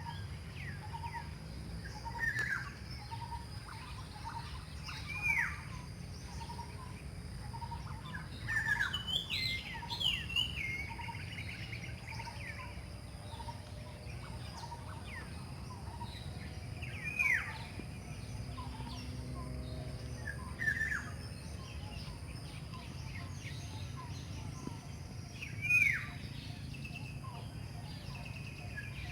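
Wild birds calling: loud, curved whistled notes that recur every few seconds, with a regular string of soft short notes about once a second through the first half. A steady low rumble lies underneath.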